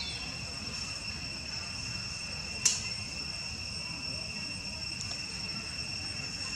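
Steady, high-pitched insect drone, like crickets calling, held on one unchanging note. A single sharp click cuts in about two and a half seconds in.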